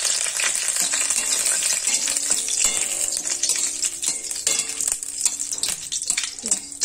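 Curry leaves sizzling and crackling in hot oil in an aluminium kadai, with a metal spatula scraping and tapping the pan as they are stirred.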